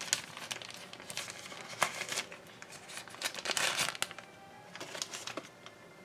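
Paper wrapping being pulled off and handled: irregular crinkling and rustling, loudest about two seconds in and again around three and a half seconds in, then dying down.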